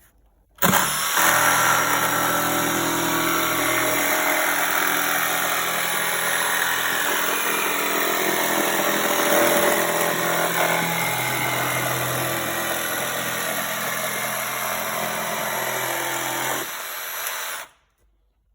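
Bosch GST 18V-Li B cordless jigsaw switching on and running steadily with its blade sawing through a workpiece for about sixteen seconds, then stopping abruptly near the end.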